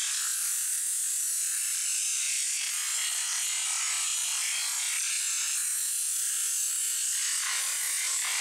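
High-pressure water jet from a pressure washer wand spraying onto a raw chicken and wet concrete: a steady, high hiss.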